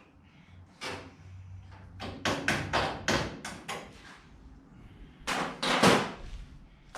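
Metal tools clanking and knocking against the engine while the crankshaft pulley is being taken off the harmonic balancer. There is a single knock about a second in, then a quick run of strokes at about four a second, and the heaviest knocks come near the end.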